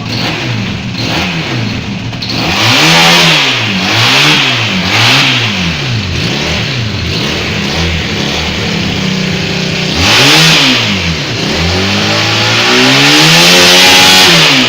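Honda CB 450 DX motorcycle's air-cooled parallel-twin engine idling and being revved by hand: a run of short throttle blips, then a sharper rev about ten seconds in, and a longer rev held high for about two seconds that drops back to idle near the end.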